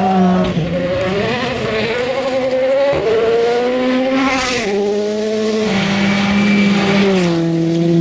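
Rally cars' turbocharged four-cylinder engines at full throttle on a gravel stage. The engine note climbs and drops sharply at each gear change, about 4.5 s and 7 s in, over the hiss of spraying gravel.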